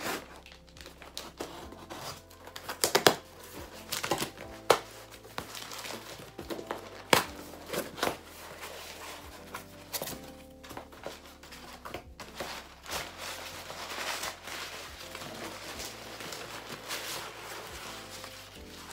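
A cardboard shipping box being ripped open by hand: sharp tearing and ripping of tape and flaps, then in the second half steady crinkling and rustling of crumpled brown paper packing being pulled out. Soft background music plays underneath.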